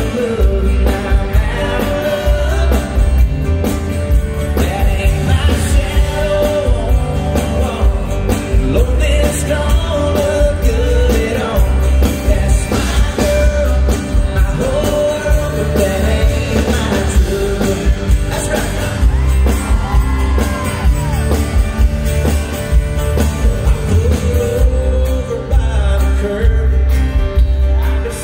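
Live country song in a large arena: men singing over strummed acoustic guitars, with a band's steady bass-and-drum beat underneath.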